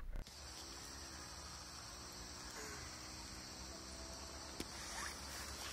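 Crickets chirring faintly in one steady, unbroken high trill, with a few faint clicks about four and a half to five seconds in.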